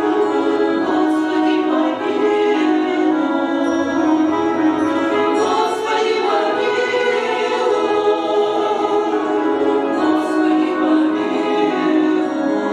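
Choir singing in chorus, several voices holding long sustained chords.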